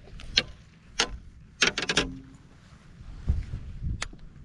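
Sharp clicks and knocks of fishing gear being handled on a small boat: single clicks about half a second and a second in, a quick run of four or five about two seconds in, and one more near the end, over a low rumble.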